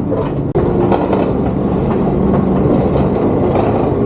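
BART train running on the tracks: a loud, steady rail rumble with a low hum and scattered wheel clicks, getting louder about half a second in.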